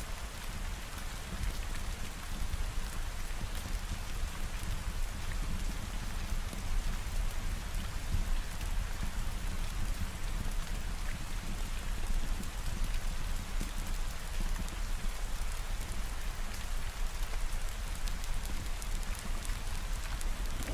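Steady rain falling, over a constant deep rumble, with faint scattered ticks on top.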